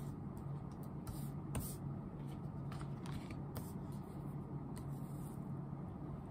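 Tarot cards being shuffled and handled: faint, scattered flicks and swishes of the cards, over a steady low hum.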